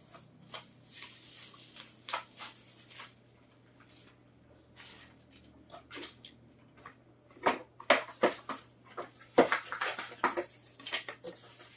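Irregular clicks, taps and rustles of keyboard packaging being handled and opened, sparse at first and busier and louder in the second half.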